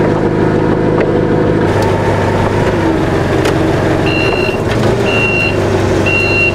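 Engine of a forklift unloading a delivery, running steadily. From a little past halfway, its reversing alarm beeps about once a second, four times.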